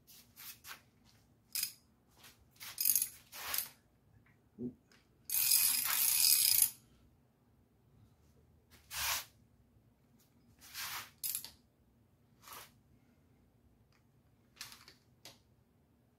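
Hand wrench clicking and clinking on a V8's rocker arm adjusting nuts as the hydraulic lifters are preloaded, with a longer run of rapid ratchet clicking about five seconds in.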